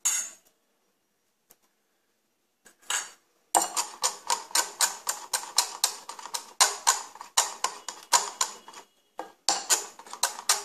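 Metal wire whisk beating thick gram-flour batter in a glass bowl, its wires clicking against the glass in quick, even strokes. The whisking starts about three seconds in, pauses briefly, and picks up again near the end.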